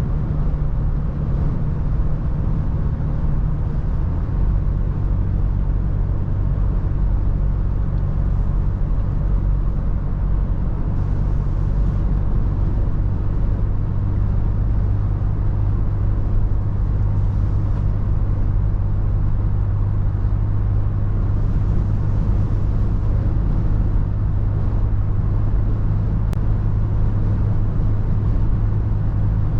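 Toyota FJ Cruiser's 4.0-litre V6 droning steadily at cruise, under a constant rush of tyre and wind noise. The engine note shifts to a new pitch about four seconds in, as with a gear change or a change of speed.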